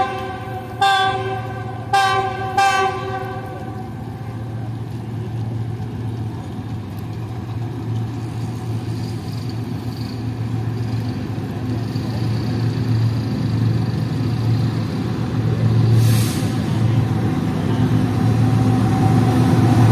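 Pakistan Railways GEU40 diesel locomotive sounding its horn in about three short blasts over the first three seconds. The steady low rumble of the locomotive and its train then follows, slowly growing louder, with a brief hiss about sixteen seconds in.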